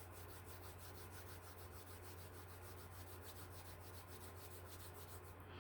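Near silence: room tone with a steady low hum and a faint, fast, even ticking high up, about eight or nine ticks a second.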